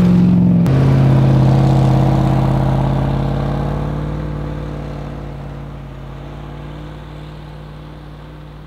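First-generation Toyota Sequoia's 4.7-litre V8 driving up a snow-covered trail through deep snow. The engine note holds steady and fades gradually as the truck moves away.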